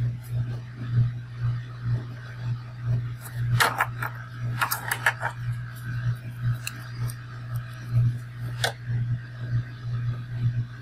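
Pens being handled and drawn on sketchbook paper: a few short clicks and scratches about four to five seconds in and once more near nine seconds, as a marker is set down and a brush pen is picked up and uncapped. A steady low hum runs underneath.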